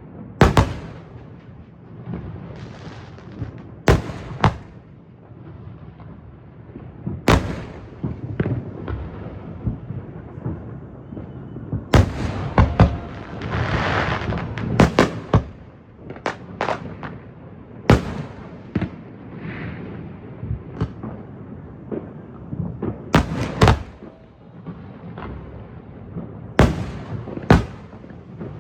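Fireworks display: aerial shells bursting with sharp bangs every few seconds over continuous crackling, with a longer hissing, crackling stretch about halfway through.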